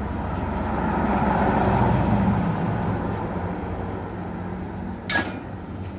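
A steady low engine hum, with traffic noise swelling and fading over the first few seconds, and a single sharp click about five seconds in.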